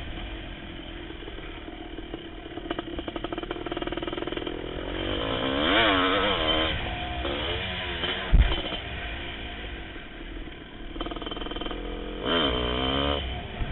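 A 1988 Kawasaki KX500's two-stroke single-cylinder engine being ridden hard, its revs rising and falling in waves as the throttle is worked. A single sharp thump comes about eight seconds in.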